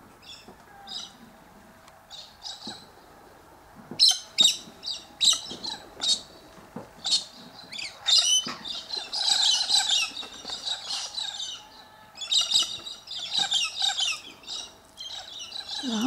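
Parrots calling: a run of short, high calls from about four seconds in, then two spells of dense chattering. A faint steady hum lies underneath.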